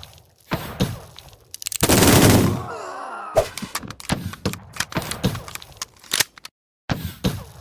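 Gunfight sound effects: a string of sharp gunshots, with a dense, loud stretch of fire lasting just under a second about two seconds in, then more scattered shots. The sound cuts off abruptly to silence twice.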